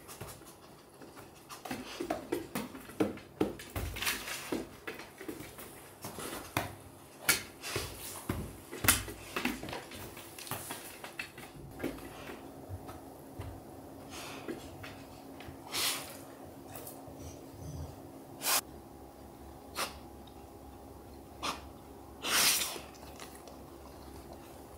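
Golden retriever sniffing at close range: a fast run of short, sharp sniffs and puffs of breath that thins out after the middle, with one longer snort near the end.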